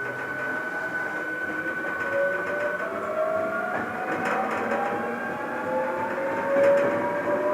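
Hankyu Kyoto Line electric train heard from inside the passenger car while it accelerates: the traction motors' whine climbs steadily in pitch over the rolling noise of the wheels, with a few faint clicks from the rails.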